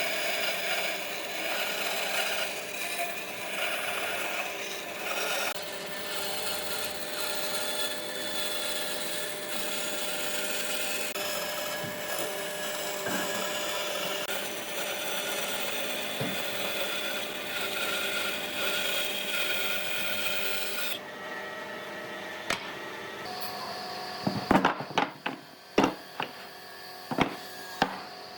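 A tool rasping and rubbing on wood in a continuous scraping for about twenty seconds. The sound then changes, and a run of sharp knocks follows near the end.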